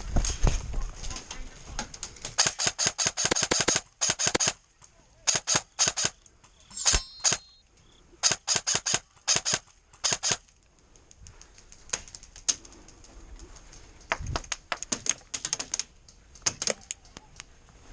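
Airsoft guns firing in repeated bursts of rapid shots, with short pauses between the bursts.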